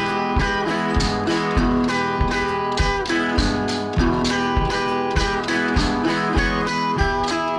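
Background music: guitar-led track with a steady beat.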